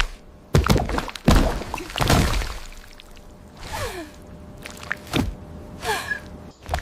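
AI-generated ASMR eating sounds: several crisp crunching bites in the first few seconds, then quieter chewing with a couple of short squeaks that fall in pitch.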